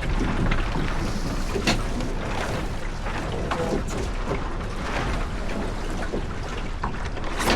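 Water washing along a small sailboat's hull under way, with wind on the microphone and a couple of sharp knocks from gear aboard.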